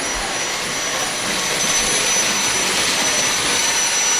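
Dyson V6 Absolute cordless vacuum with its soft roller cleaner head running at full suction over a hard floor, a steady rush of air with a high motor whine, picking up debris.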